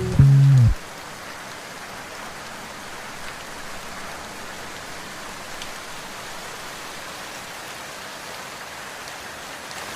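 Steady rain falling, an even hiss of rain with no other sound over it.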